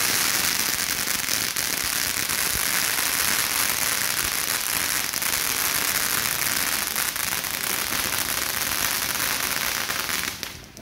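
Novelty dog-shaped firework spraying sparks: a steady, loud hiss that stops abruptly near the end.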